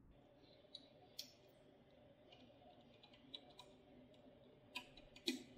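Faint, scattered clicks of a small screwdriver working the screws of a circuit-board screw-terminal block as wires are fastened, a few sharper ones near the end.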